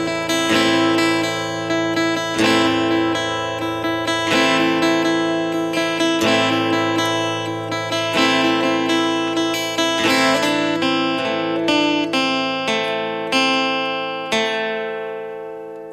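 Acoustic guitar strumming chords as an instrumental outro, gradually getting quieter, with the last strum near the end left to ring out and fade.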